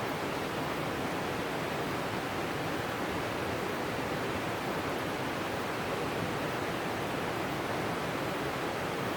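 Steady rush of a fast-flowing mountain stream, an even unbroken wash of water noise.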